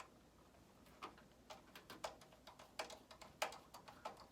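A screwdriver driving the power supply's mounting screws into a metal PC case: a string of irregular, light clicks and ticks.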